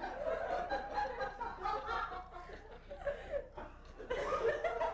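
People laughing quietly.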